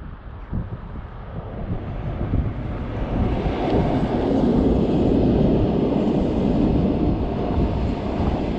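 A passing train, a steady rumble that swells over a couple of seconds and then holds loud.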